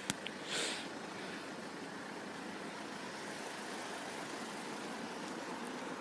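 Steady hum of road traffic, with a sharp click right at the start and a short rustle about half a second in.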